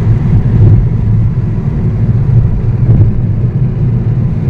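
Steady low road rumble of a car driving at highway speed, heard from inside the cabin.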